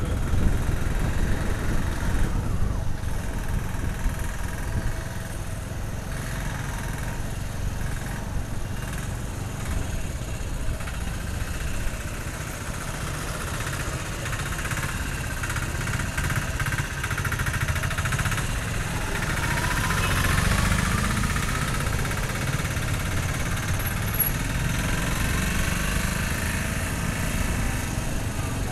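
Bajaj Avenger motorcycle's single-cylinder engine running steadily at low riding speed, with a rising engine note about twenty seconds in.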